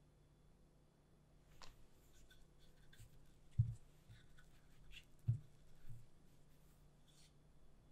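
Faint rubbing and rustling of hands and buttery sable tart dough on a floured silicone baking mat as the rolled dough is wound onto a rolling pin. Two soft, low thumps, about three and a half and five seconds in.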